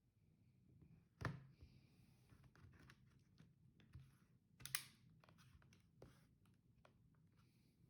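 Faint handling sounds of a Lenovo ThinkPad T470p laptop: scattered small clicks and brief rubbing, with two sharper clicks, one about a second in and one just past halfway.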